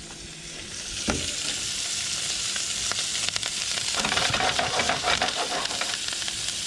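Tailor fillets frying in oil in a pan: a steady sizzle with fine crackling that swells about a second in, with a single knock at about the same moment.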